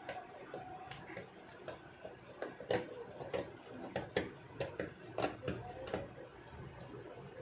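Small blade scraping across the solder balls on an IC reballing stencil to level them, heard as a string of short, faint scratchy clicks at an irregular pace, about two a second, busiest in the middle.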